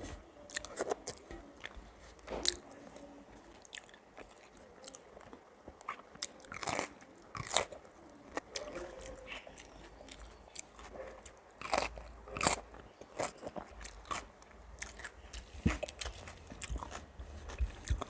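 Close-miked eating sounds: a person biting and chewing a rice meal, with irregular sharp crunches and mouth clicks.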